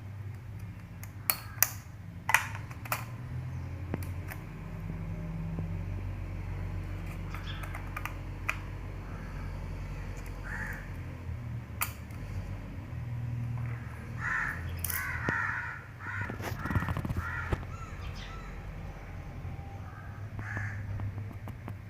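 A few sharp clicks in the first three seconds and occasional later taps, typical of a laptop being handled during a RAM install, over a steady low hum. Short harsh calls come in clusters around the middle.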